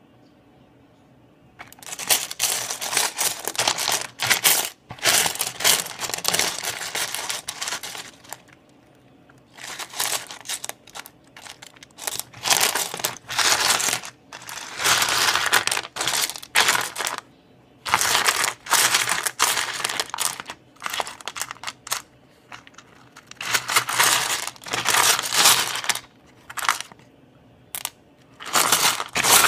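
Pieces of rough opal rattling and clinking against each other as a hand stirs through a pile of them, in bursts of a few seconds with short pauses, starting about two seconds in.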